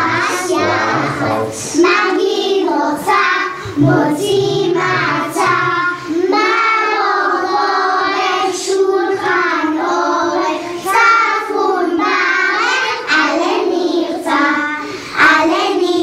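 A group of children singing a melody together in high voices, in continuous phrases with short breaths between them.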